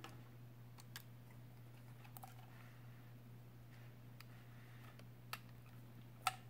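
Faint, scattered clicks and taps of a plastic hard-drive mounting bracket and a 2.5-inch laptop hard drive being handled and fitted together, the sharpest click near the end. A steady low hum lies under them.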